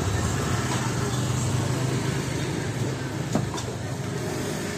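Small motor scooter engine running close by and fading as it rides away, with market chatter behind it. A single sharp click about three and a half seconds in.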